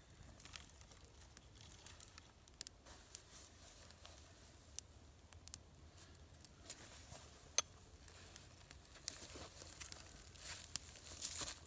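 Small, newly lit campfire catching, crackling faintly with scattered sharp pops, more often near the end.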